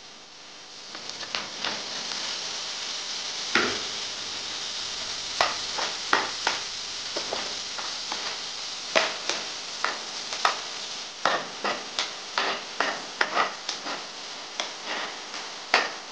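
Chopped vegetables sizzling in a hot frying pan while a metal spatula stirs them, scraping and knocking against the pan about twice a second. The sizzle rises about a second in.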